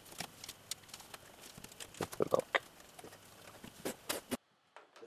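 Irregular clicks and light knocks of plastic wiring-loom clips and cables being handled and pressed into place on a washing machine's metal cabinet, with a louder cluster of clicks about two seconds in. The sound cuts off suddenly near the end.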